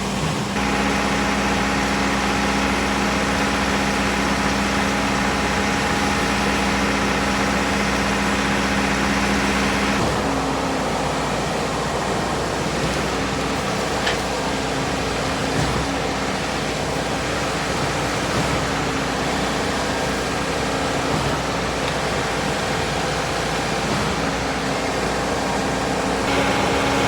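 Concrete truck's heavy diesel engine running steadily. Its hum eases off about ten seconds in and picks up again near the end, as the engine speed changes.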